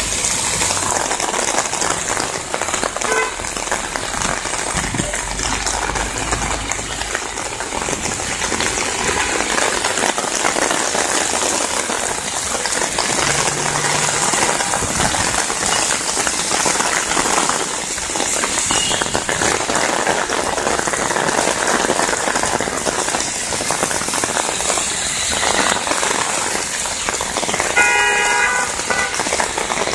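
Heavy rain pouring onto a flooded city street: a steady, dense hiss, with cars swishing through the standing water. Near the end, a brief pitched tone of about a second sounds over it.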